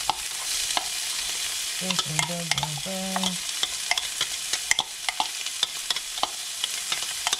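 Diced carrots, celery and chopped red onion sizzling in hot olive oil in a frying pan, a steady hiss with irregular crackles and pops throughout, as the onion goes into the pan.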